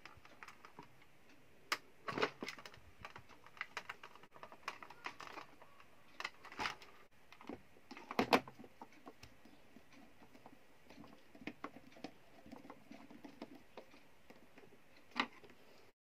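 Irregular light clicks and knocks of a Black+Decker 12-inch box fan's plastic housing being handled and closed up, with its screws driven back in by screwdriver. A few sharper knocks stand out among the rattling.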